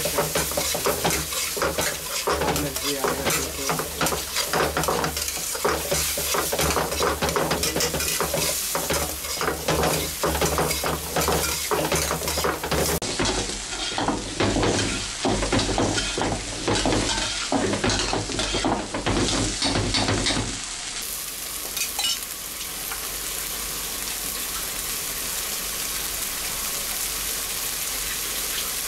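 Metal spatula scraping and clattering against an iron kadai as chopped onions and tomatoes are stirred and fried in hot oil, sizzling. About 21 seconds in the stirring stops and only a steady frying sizzle goes on.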